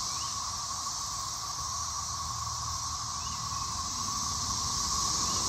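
A chorus of cicadas droning steadily, a continuous whirring band of sound with a hiss above it, growing slightly louder toward the end. The sound is almost like a spaceship out of an old 1950s science fiction movie.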